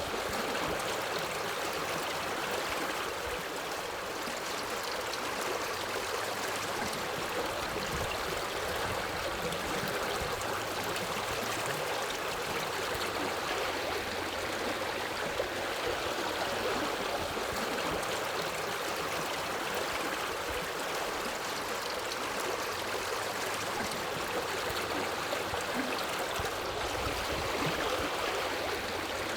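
Forest river flowing over rocks: steady rushing and babbling water.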